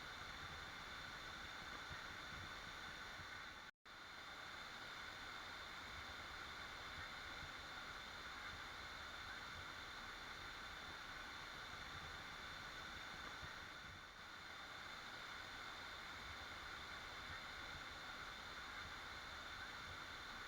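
Waterfall: steady rushing water, cut off for a split second about four seconds in.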